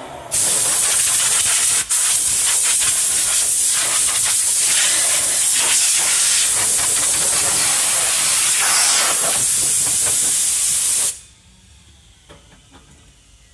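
Compressed air hissing loudly and steadily for about eleven seconds, with a very short break near two seconds, then cutting off abruptly. It comes at a CNC stair machine just after its cutting spindle has spun down, as air blows sawdust from the cut.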